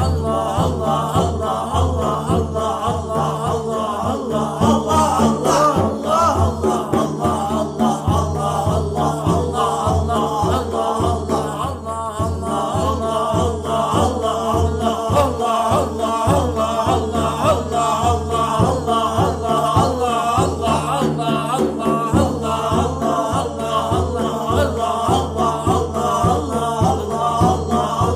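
Islamic dhikr chant: voices chanting the remembrance of Allah over a steady, rhythmic low pulse and held drone tones.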